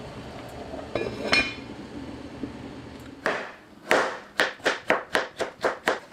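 Kitchen knife chopping a carrot on a cutting board: a quick run of about eight sharp chops at roughly four a second, starting about three seconds in. A short clink comes about a second in.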